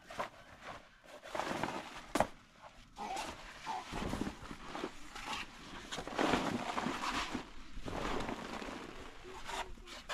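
Heavy canvas floor sheet being pulled, lifted and gathered up, an irregular rustling and scraping in repeated bursts, with a sharp click about two seconds in.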